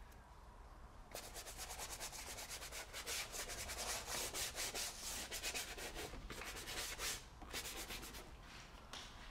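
A hand-held applicator rubbing and scraping paint across a large sheet of paper in quick back-and-forth strokes, starting about a second in, pausing briefly near seven seconds, then a few more strokes.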